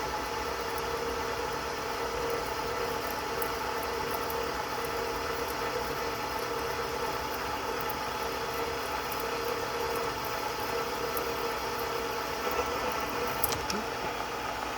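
Milling machine running steadily, its end mill slowly cutting out the remains of a broken stud in an engine casting.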